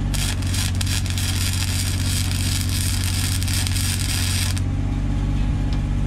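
Arc welding, a steady crackling buzz lasting about four and a half seconds and cutting off abruptly: a weld being laid to fuse a nut onto a sheared wheel-hub stud so it can be turned out. An engine runs steadily underneath throughout.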